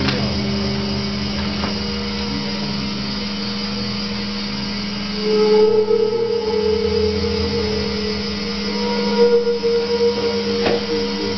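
Eurorack analog modular synthesizer playing a noisy experimental drone: a steady low tone over a buzzing hiss, with a higher tone that swells louder about halfway through.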